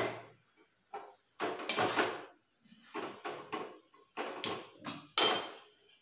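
Kitchen utensils knocking and clanking, among them a metal spoon stirring in a steel pan of bottle-gourd curry: a string of about ten sharp knocks, the loudest about five seconds in.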